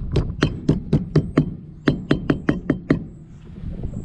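Rapid, evenly spaced sharp knocks, about four a second, with one beat missing about a second and a half in; they stop about three seconds in.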